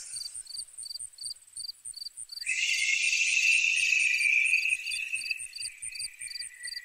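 Crickets chirping steadily, about two to three chirps a second. About two and a half seconds in comes a long, breathy blown-out exhale like wind, loudest at first and fading away over about five seconds.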